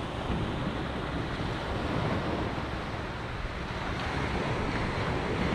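Sea surf washing on the shore with wind buffeting the microphone: a steady rushing noise with low, gusty rumbles.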